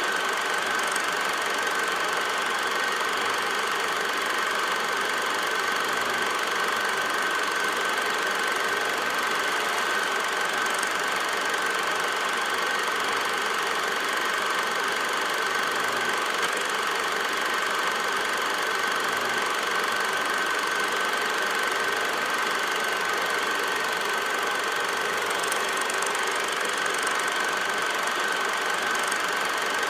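Steady mechanical whir with a constant high-pitched hum, unchanging throughout.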